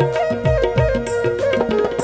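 Music with a steady drum rhythm: low drum strokes that fall in pitch about twice a second, with lighter strokes between them, over a held note and a melody line.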